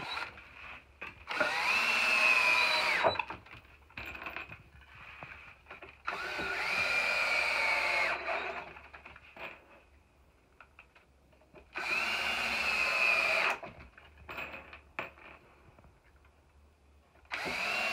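Cordless drill-driver driving wood screws into pre-drilled wooden rack boards in four bursts of about two seconds each. Each time the motor whines up to speed, holds a steady pitch and stops; the last burst begins near the end. Light clicks and handling knocks fall between the bursts.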